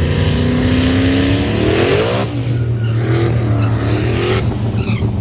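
Pickup truck's engine revving hard with a rising pitch, falling back about two seconds in, then revving up again and cutting off sharply about four seconds in.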